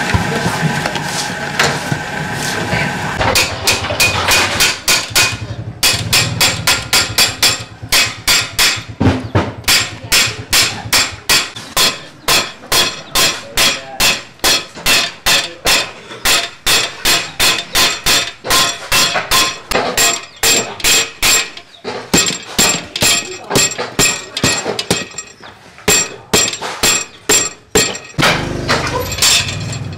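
Hand hammer pounding a rusted steel tube of a cart frame, an even run of sharp metal blows at about two to three a second with a slight ring, stopping near the end. At the start, a mixing machine runs for a few seconds.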